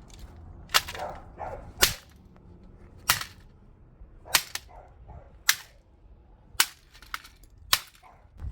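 Seven sharp, evenly spaced blows about a second apart: a hand tool striking a plastic digital alarm clock under a fiberglass cover.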